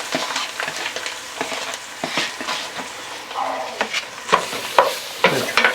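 Chopped onion, bell pepper and celery sizzling in a hot, chocolate-dark roux, with a spoon scraping and clicking against the pot as it is stirred in. The sharpest scrapes come in the second half.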